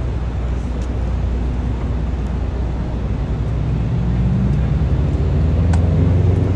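City street traffic rumbling, with a heavy vehicle's engine drone growing louder in the second half.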